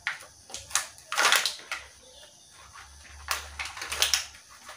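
Plastic toys being handled: scattered light clicks and knocks with a few short rustles, the loudest a little after a second in and again past three seconds.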